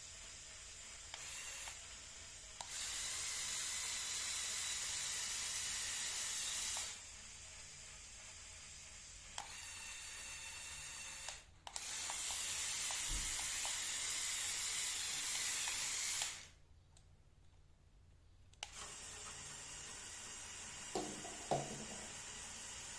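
LEGO Power Functions electric motors and their plastic gearing whirring as the remote-controlled backhoe loader's functions run, switching on and off in stretches of a few seconds each. A few clicks near the end.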